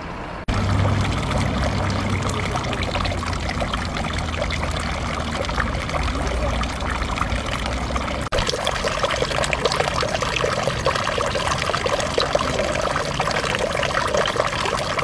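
A thin stream of water falling from a wooden spout into a stone fountain basin, trickling and splashing steadily into the pool.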